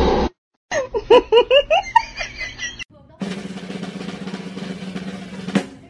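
Edited-in music and sound effects. First comes a run of quick bouncing pitched notes, then a steady drumming passage of about two and a half seconds that stops abruptly.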